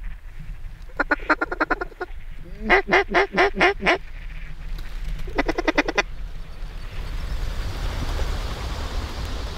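Mallard-type duck quacking: three quick runs of quacks in the first six seconds, then a rising rush of noise.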